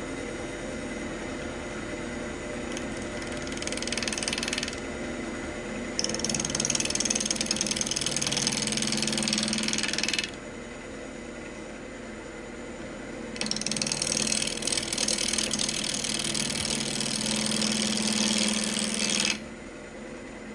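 Wood lathe spinning a pecan bowl blank at around 1,000 rpm with a steady hum, broken by three spells of a bowl gouge cutting into the spinning wood: a short one about three seconds in, then longer cuts of about four and six seconds, each stopping abruptly.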